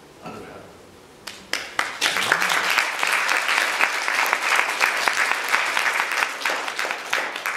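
Audience applauding. A few scattered claps come in about a second in and quickly build to full, steady applause, which starts to thin out near the end.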